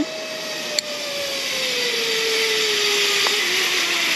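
Zipline trolley pulleys running along the steel cable as a rider goes down the line: a steady whine that slowly falls in pitch under a hiss that grows louder. There is a sharp click about a second in.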